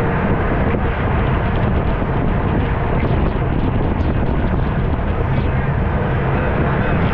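Steady wind rushing over the microphone of a camera on a road bike ridden at race speed.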